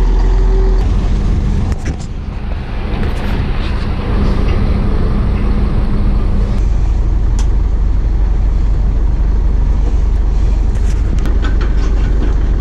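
Heavy engine running steadily close by, a low rumble with a steady hum over it that stops about six and a half seconds in, and a few sharp knocks now and then.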